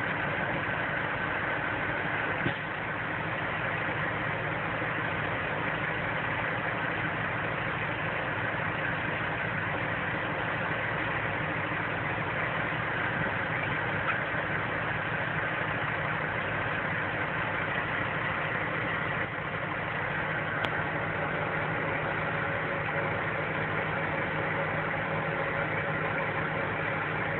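Truck engine running steadily at low revs, an even drone with no revving or change.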